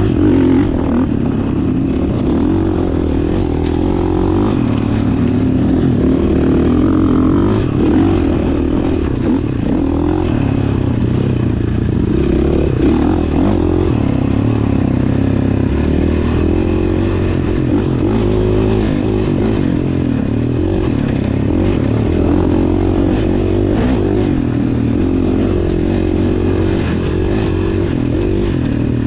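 GasGas dirt bike engine heard up close while being ridden, running continuously with its pitch wavering up and down as the throttle is worked.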